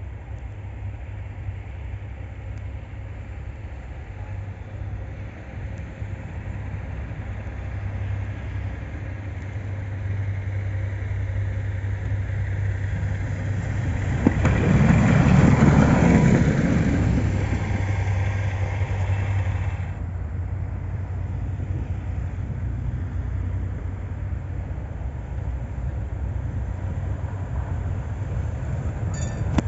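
Tatra T3 tram approaching and passing, its running noise building to a peak about halfway through and dropping away a few seconds later. A steady low hum runs underneath, and the sound begins to rise again at the very end.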